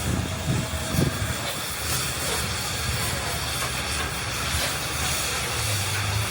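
Steady machinery noise: a constant hiss over a low hum, with a couple of low knocks about half a second and a second in.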